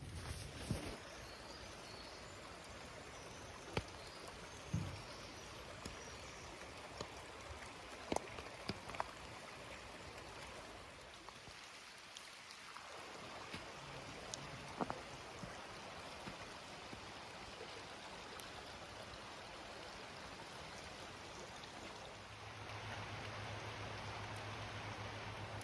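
Steady rush of a flowing river, with a few sharp taps of dripping water scattered through it. A low steady hum joins near the end.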